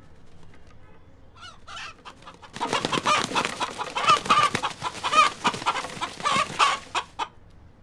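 Rooster clucking: a couple of short calls, then, from about two and a half seconds in, a loud rapid run of short calls lasting some four seconds.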